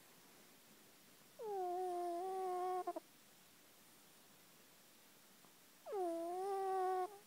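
Sleeping cat snoring: two long, pitched snores about four and a half seconds apart. Each slides down in pitch at the start and then holds a steady tone for about a second and a half, the first breaking off in a few short stutters at its end.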